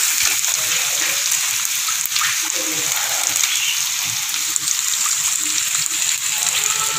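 Meat pieces sizzling steadily in a frying pan with garlic, onion and chili as they finish cooking in their seasoning.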